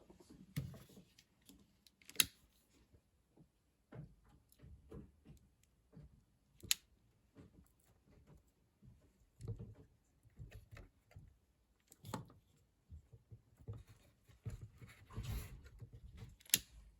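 Small clicks and rustling of hands working a wire splice, with four sharper clicks spread several seconds apart.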